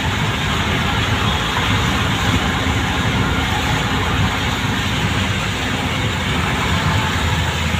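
Steady road noise from a vehicle moving along a wet road: an even rushing hiss of tyres on wet asphalt over a low rumble.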